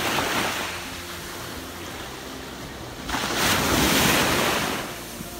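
Small waves breaking and washing up on a sandy shore. A bigger wash of surf comes in about three seconds in, the loudest part, and falls away near the end.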